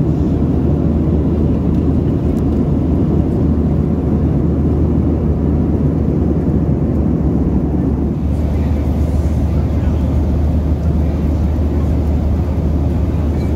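Steady cabin noise of a Boeing 737-800 in flight: a low, even rush of airflow over the fuselage with the drone of its CFM56 engines underneath.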